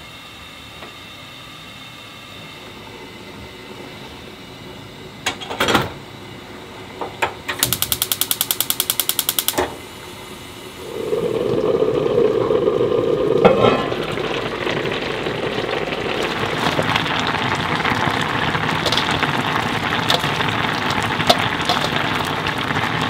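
Spicy beef soup (yukgaejang) boiling in a Staub cast-iron pot on a gas burner: a steady bubbling hiss that sets in about halfway through and is the loudest sound. Before it come a few knocks and a quick run of even clicks lasting about two seconds.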